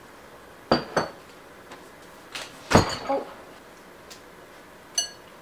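A metal fork clinking against a ceramic salad bowl as the salad is tossed: about half a dozen separate clinks, some with a short bright ring, and a fuller knock about halfway through.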